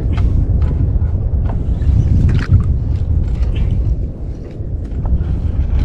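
Wind buffeting the camera's microphone: a loud, uneven low rumble, with scattered faint clicks and knocks from the boat and tackle.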